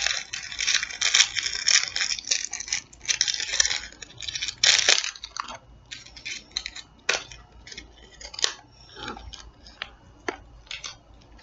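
A small clear plastic wrapper crinkling and tearing as it is pulled open by hand. The rustling is dense for the first several seconds, then thins out into separate crackles and clicks.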